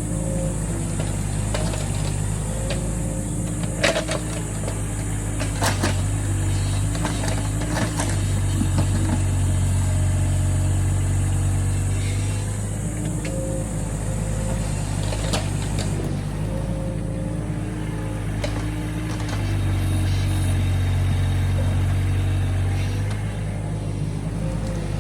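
Hydraulic excavator's diesel engine running steadily, getting louder twice as it takes load while the arm digs, with a few sharp knocks early on from the bucket and arm working.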